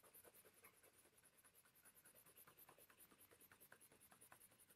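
Faint scratching of a yellow coloured pencil shading back and forth over blue on paper, in quick repeated strokes.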